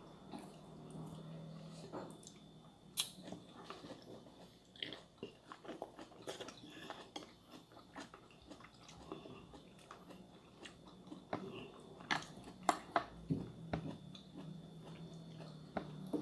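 Quiet eating at a table: chewing and mouth noises with scattered small clicks of chopsticks on plates and bowls, at irregular intervals.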